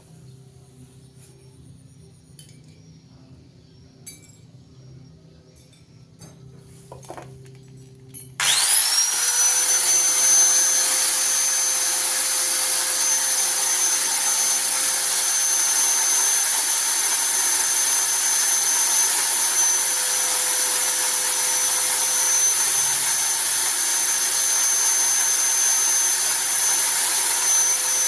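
A few light handling clicks, then about eight seconds in an electric power tool switches on. Its motor whines up to speed within a moment and runs at a steady speed.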